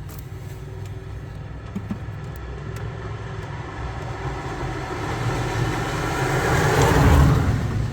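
A car driving past, getting steadily louder over several seconds and passing about seven seconds in, then starting to fade, over a steady low rumble.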